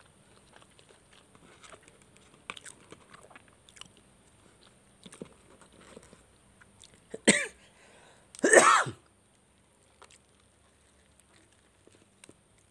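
Soft handling of a burger and its cardboard box, then two loud sudden bursts from a person's nose and throat about a second apart, the second one longer, like a sneeze or cough.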